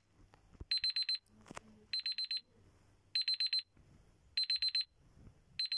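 Smartphone clock-app timer alarm ringing once the countdown has run out: quick runs of short, high beeps, about one run every 1.2 seconds, five runs in all.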